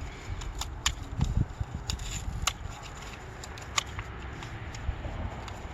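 Hands rustling and crinkling packaging and a paper towel while taking out a new turn-signal bulb, with scattered sharp clicks and a low rumble underneath.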